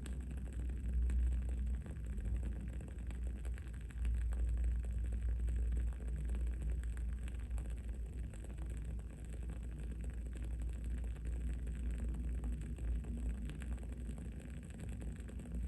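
Wood-wick candle crackling with faint, scattered ticks over a steady low rumble of background noise, which is the loudest part.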